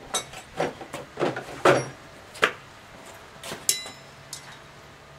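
Hammer striking a chisel to pry open a piece of flat bar steel folded over too tightly: about eight sharp metal strikes at uneven intervals over the first four seconds, a few with a short ring.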